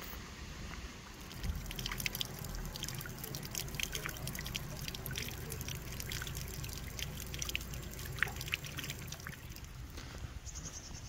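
Water trickling and dripping, with many irregular small splashes, over a steady low rumble.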